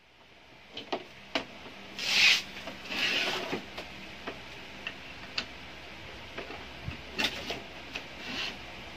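Brother laser printer (DCP-L2540DW family) mechanism running with irregular clicks and short rubbing, grinding swells from its gear train: the gear noise fault the machine is being repaired for.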